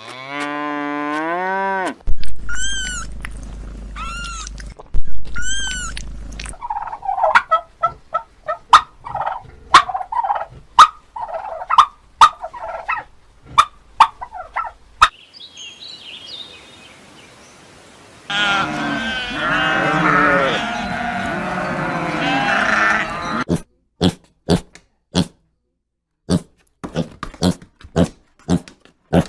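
Farm animals calling in a string of short clips, one kind after another: a drawn-out pitched call, three repeated high calls, a run of shorter calls, then a dense chorus of many animals. Near the end, quick sharp sounds about two a second.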